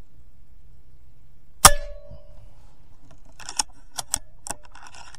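A single shot from a DAR .22 Gen III PCP air rifle: one sharp crack with a short ringing tone after it. About two seconds later come several quieter clicks and rattles of the rifle being handled.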